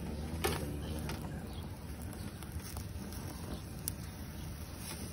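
Metal tongs clicking and scraping against a grill grate while whole eggplants are turned over the flame, a few sharp clicks, the loudest about half a second in and another near four seconds. A steady low rumble runs underneath.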